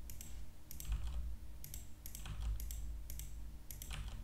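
Computer keyboard keys and mouse buttons clicking: about a dozen short, irregularly spaced taps as the G key and left mouse button are pressed in turn, over a faint low hum.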